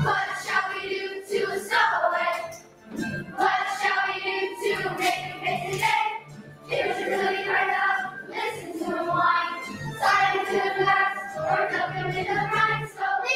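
Children's choir singing a song in phrases with held notes, over recorded backing music.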